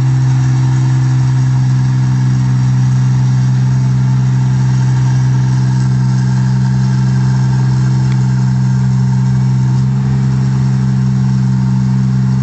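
Engine of an 8060 rice combine harvester running steadily under working load as it harvests paddy, a constant low-pitched hum with overtones that barely changes.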